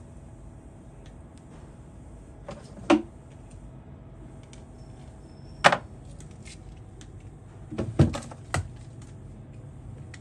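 A handful of sharp clicks and knocks as tools are picked up and set down on an electronics repair bench, over a steady low hum.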